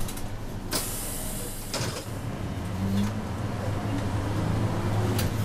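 City route bus heard from inside the cabin as it drives, its engine a steady low hum. A short hiss comes about a second in, and a click near the end.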